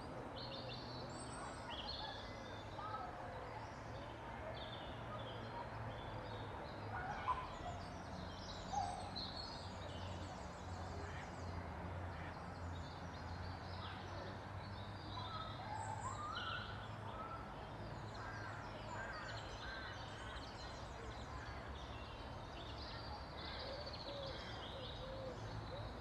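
Small songbirds singing and calling, many short chirps and trills scattered throughout, over a steady low hum.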